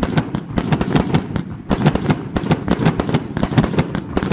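Fireworks and firecrackers going off in a dense, rapid run of sharp cracks and bangs, several a second, with a brief lull about a second and a half in.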